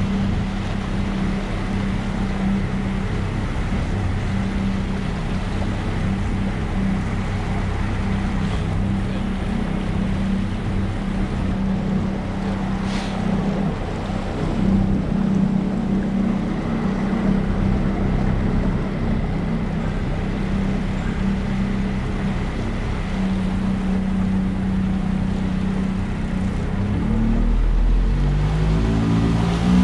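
Engine running at a steady speed, a continuous low hum; near the end its pitch changes in steps as the engine speed changes.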